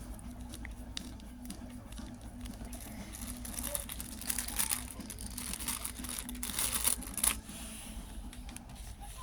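Plastic packaging crinkling and rustling as it is handled, with scattered small clicks; the crinkling is loudest in the middle stretch and then stops.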